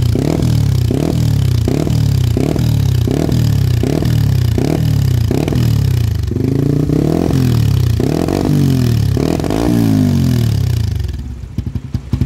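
Suzuki GSX-R150's single-cylinder engine revved through a CLD Racing C3 Oval aftermarket exhaust fitted with its DB killer baffle. It starts with quick throttle blips about twice a second, then a few longer revs, then settles back to idle near the end.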